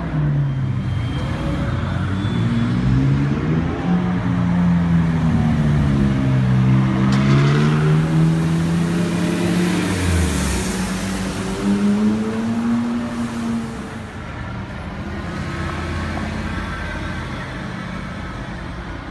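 Car engine and exhaust revving and accelerating on a city street, its pitch rising and falling several times, then quieter for the last few seconds.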